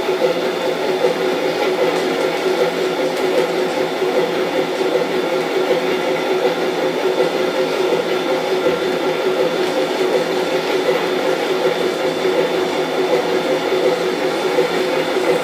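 On30 narrow-gauge model train running on its track: a steady mechanical whir of the motor and gearing with wheel noise, unchanging throughout.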